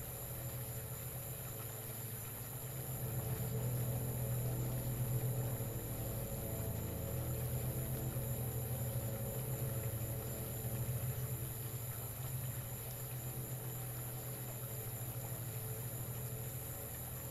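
A steady low electric hum with a thin high whine above it, swelling a little about three seconds in and easing back after about ten seconds.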